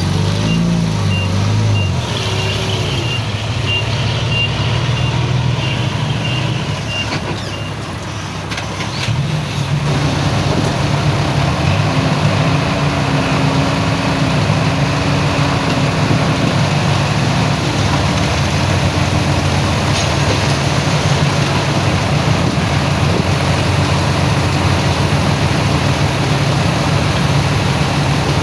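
Heavy diesel earthmoving machinery running, with a reversing alarm beeping in an even rhythm for the first several seconds. About ten seconds in, an engine grows louder and runs steadily under load.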